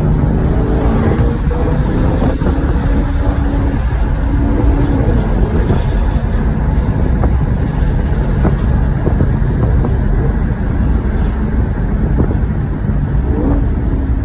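Maserati GranTurismo V8 running on its stock exhaust in Sport mode, a loud continuous deep rumble. The engine note climbs at the start and briefly again near the end, with a few short sharp cracks in between.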